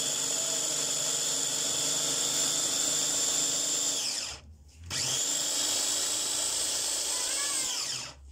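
Sinbo electric mini chopper's motor running with a steady high whine as it chops cabbage in its glass bowl. A little after four seconds in it winds down and stops. Half a second later it is pressed on again, runs about three more seconds and winds down.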